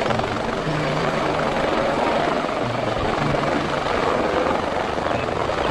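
Helicopter with its main rotor turning at speed, a loud, steady rotor and engine noise.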